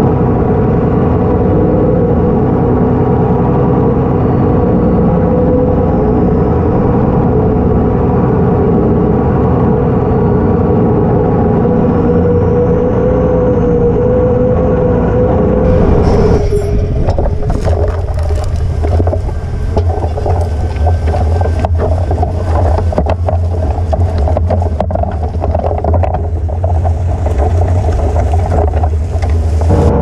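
Case IH Puma 240 tractor's six-cylinder diesel working under load while pulling a reversible plough, a steady drone with a held whine. About halfway through the sound changes abruptly to a deeper engine hum close up, with dense crackling and knocking as the plough runs through the soil.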